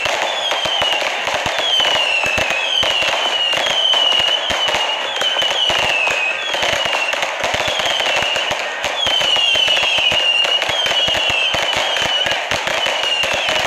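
Multi-shot fireworks cake firing continuously: a dense crackle of rapid pops and bangs, with a shrill whistle that falls slightly in pitch repeating about once a second.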